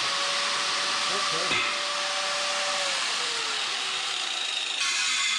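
Angle grinder running steadily as it cuts a channel along the bottom of a doorway.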